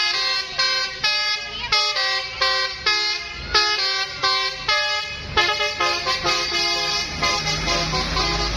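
Bus telolet horn, a set of musical air horns, playing a quick tune of short notes that change pitch about twice a second.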